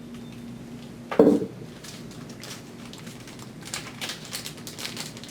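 A sharp knock about a second in, then a run of small plastic clicks and taps as the sampling hose is handled and fitted onto the gas monitor's inlet port.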